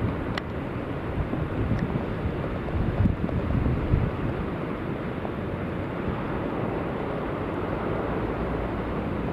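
Storm wind buffeting the microphone over the steady rushing of heavy surf breaking on a shingle beach, with a few louder surges as waves overtop the bank.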